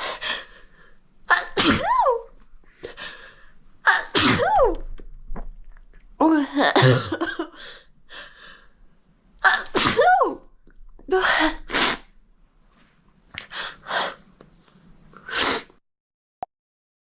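Girls sneezing over and over: a run of about eight loud 'achoo' sneezes, several with a pitch that rises and then falls, coming between half a second and a few seconds apart.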